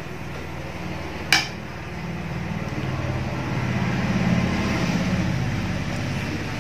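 A single sharp clink of a metal spoon against a tray about a second in, over a steady low hum.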